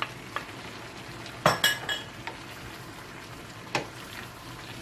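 A metal spoon knocking and clinking against a pan as vegetables are stirred, with the loudest burst a quick cluster of ringing clinks about a second and a half in. Frying vegetables sizzle softly underneath.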